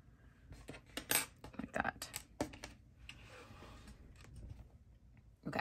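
A cluster of light clicks and taps as a metal crochet hook and crochet work are handled on a tabletop, then a soft rustle of the crochet fabric being smoothed flat by hand, with one more click near the end.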